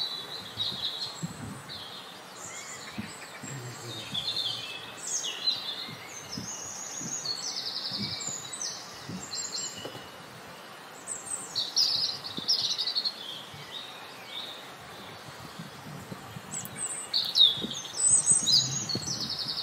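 Several small songbirds chirping and calling: a run of short high chirps and twitters with quick trills here and there, loudest near the end.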